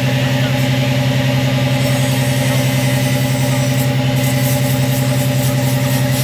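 Fishing boat's engine running steadily as the boat moves slowly through the water, a low, even drone.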